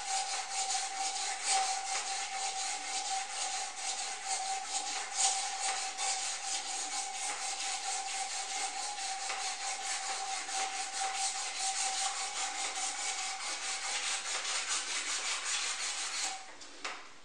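Metal support rod of a stone sculpture being polished to re-shine it: a continuous rubbing against the metal, with a steady high hum underneath. Both stop about a second before the end.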